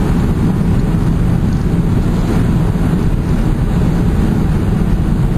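Steady road and wind noise inside a car cruising at highway speed, a constant low rumble with no alerts or other distinct events.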